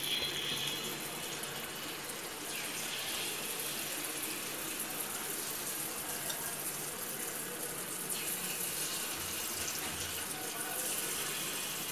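Hot coconut oil sizzling steadily in the cups of an unniyappam pan as unniyappam batter is ladled in, the hiss swelling a little as more batter goes in.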